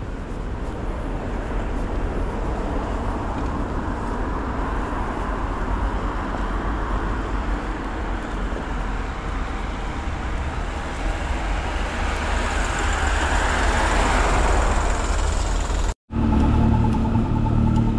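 Street traffic: a car's tyres and engine swell as it approaches and passes close by. Near the end the sound drops out abruptly and a low, steady engine hum follows.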